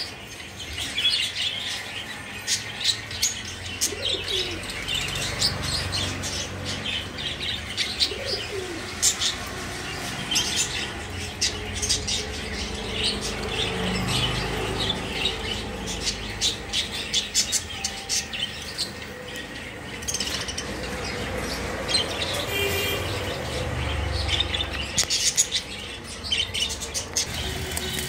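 A flock of budgerigars chattering, with many short, high chirps overlapping throughout, and wings flapping as birds move about the cage.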